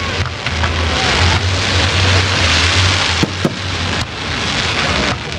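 Fireworks going off: a dense, continuous crackling hiss from fountains and bursting shells, with two sharp bangs in quick succession a little over three seconds in.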